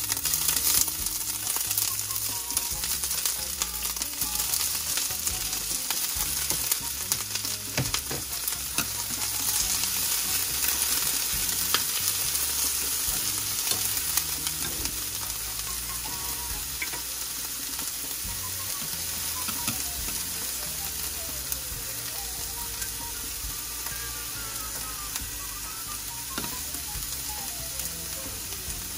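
Chopped onion sizzling as it fries in a stainless steel skillet, stirred with wooden chopsticks that click and scrape against the pan now and then.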